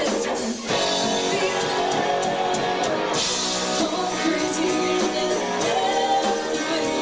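Rock band playing live, with guitar and a singing voice; the music drops out briefly just under a second in, then comes straight back.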